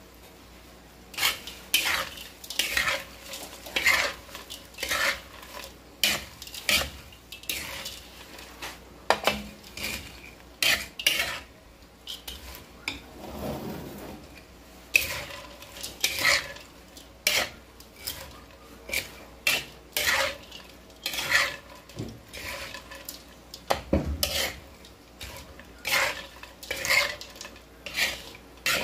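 A cooking utensil stirring and scraping food around in a pan, in repeated short strokes about one a second, with a brief lull about halfway through.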